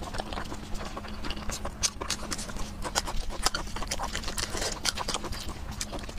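Close-miked wet chewing and lip-smacking as braised pig's trotter is eaten, with the crinkle of plastic gloves pulling meat off the bone; many quick clicks and crackles follow one another, over a faint steady hum.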